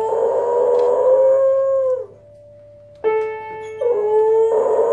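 A beagle howls long and drawn out while pressing piano keys with its front paws. The first howl lasts about two seconds and falls away at its end. About three seconds in, piano notes ring out, and a second howl begins soon after.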